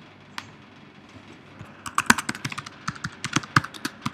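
Typing on a computer keyboard: a quick run of keystrokes starting about two seconds in, after a single click about half a second in.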